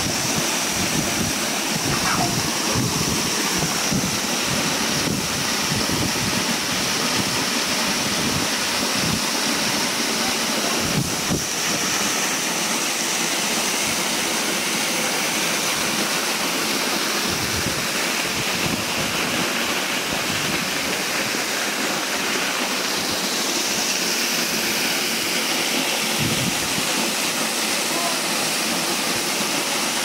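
Waterfall pouring onto rocks and into a plunge pool: a steady, loud rush of falling water.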